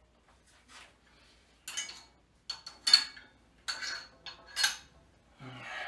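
Light metallic clinks and knocks of cable-machine hardware, about five of them spread over a few seconds, some with a brief high ring.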